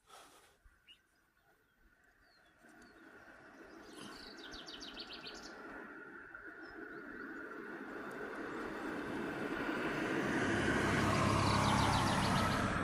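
A road vehicle approaching and passing, its rumbling noise growing steadily louder to a peak near the end. Twice, about four seconds in and again near the end, a bird gives a short, rapid, high rattle.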